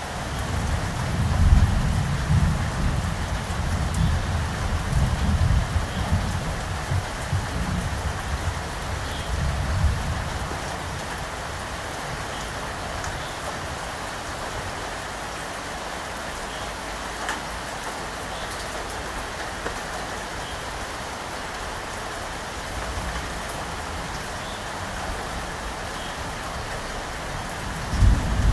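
Steady rain falling, with a low rumble of thunder rolling through the first ten seconds or so and another rumble beginning near the end.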